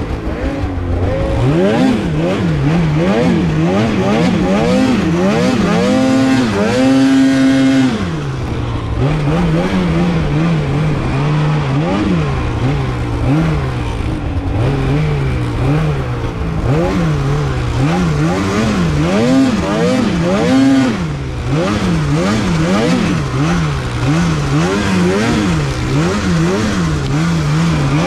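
Polaris Khaos Slash 9R snowmobile's two-stroke twin engine revving up and down over and over as the throttle is worked. It is held high for about two seconds some six seconds in and drops off briefly about twenty-one seconds in.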